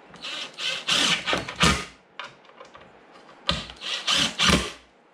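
Cordless drill driving screws into wooden chair slats, in two runs: one from about half a second in to about two seconds, and another from about three and a half seconds to near the end.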